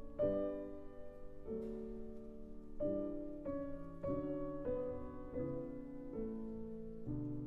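Background music: slow piano playing a series of chords, each struck and left to fade.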